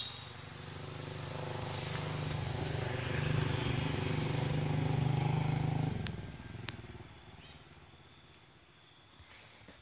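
A motor vehicle's engine passing by: it grows louder over the first few seconds, is loudest around five seconds in, then fades away about six to seven seconds in.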